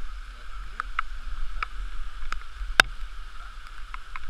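Stream water rushing over rocks, heard muffled through a waterproof camera housing, with irregular sharp clicks and knocks; the loudest knock comes nearly three seconds in.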